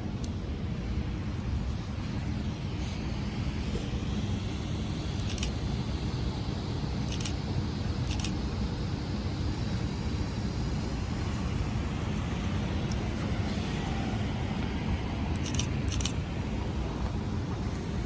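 Steady outdoor street noise, mostly a low rumble of road traffic, with a handful of short sharp clicks.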